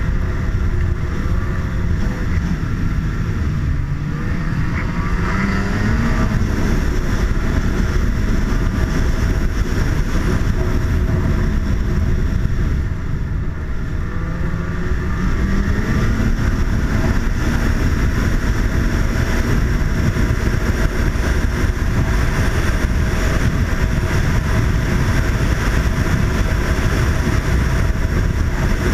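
Snowmobile engine running under way over a heavy steady rumble, its pitch climbing and falling with the throttle around four seconds in and again around fifteen seconds in.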